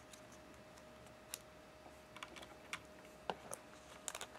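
Plastic keycaps clicking and tapping as they are handled and pressed onto a Corsair K70's Cherry MX switches: scattered light clicks, a few at a time, over a faint steady hum.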